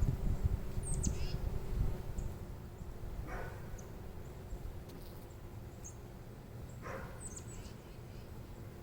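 Wind rumbling on the microphone, strongest in the first two seconds, over the faint steady hum of honeybees at the open hive. A dog barks faintly twice, a few seconds apart, and birds give short high chirps now and then.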